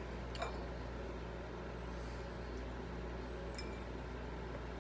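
Steady low hum of room tone, with a faint click about half a second in and another near the end.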